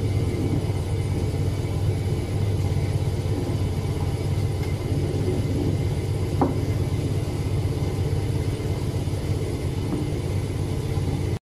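Oil-press machinery with a vacuum oil filter running with a steady low hum while the vacuum pulls the pressed oil through the filter cake. There is a single light knock about six seconds in.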